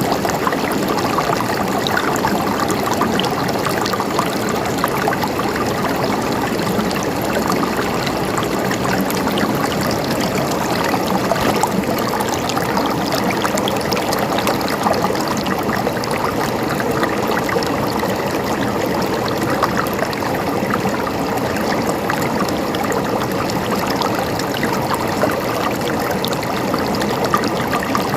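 A river stream running over rocks: a steady rushing and babbling of water, with fine trickling detail on top.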